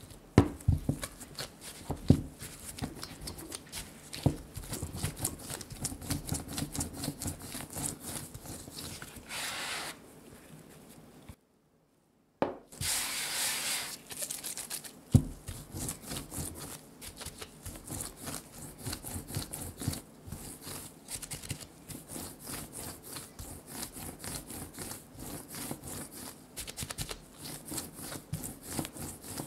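Cookie dough being kneaded and pressed by gloved hands on a wooden cutting board: quick, close-up rubbing and soft patting against the wood. The sound breaks off for about a second near the middle.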